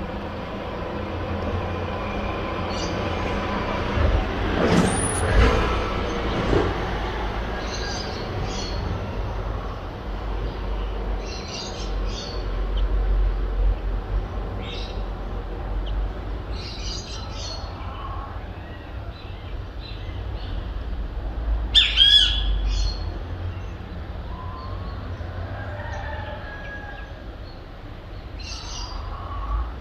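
Birds chirping and calling in the early morning over a steady low hum of city traffic. The chirps are short and scattered, and one louder call about 22 seconds in has a falling note.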